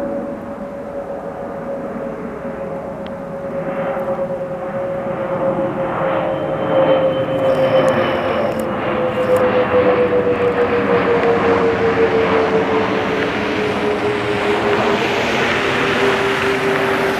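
Jet airliner flying over: a steady engine roar with a whine that slowly falls in pitch as it passes, getting louder over the first several seconds and then holding.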